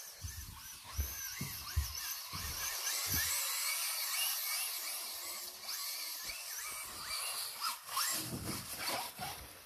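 Electric motor of an RC truck whining, its pitch rising and falling with the throttle as it strains through rutted snow on 3D-printed paddle wheels. Low thumps come in the first few seconds and again near the end.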